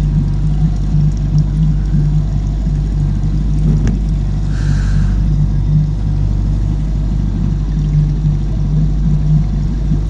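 Boat engine idling in neutral, a steady low drone that holds an even pitch, with a short click and a brief hiss about halfway through.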